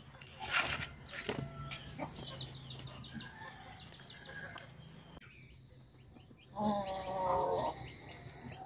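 Outdoor ambience with small birds chirping and a few knocks. A short pitched animal call, typical of a chicken, comes about two seconds before the end.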